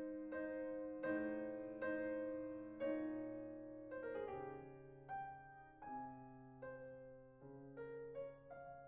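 Slow background piano music, with single notes and chords struck about once or twice a second and left to ring and fade.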